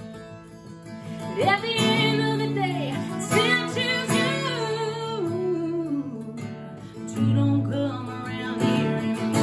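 A song on acoustic guitar with a woman singing: one sung phrase from about a second and a half in, sliding downward as it ends, then the guitar plays on alone for the last few seconds.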